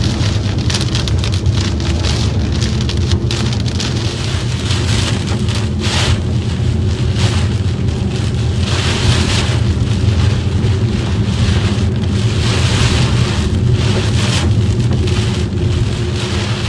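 Rain hitting the body and windshield of a moving car, many sharp drop impacts over the steady low rumble of road and engine noise, the rain heavier in waves.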